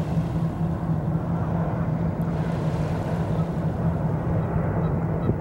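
Steady low rumble of wind on the microphone over a constant low hum, with no sudden events.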